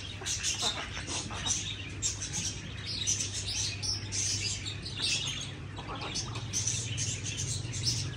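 Many small birds chirping in quick, overlapping short calls, over a low steady hum.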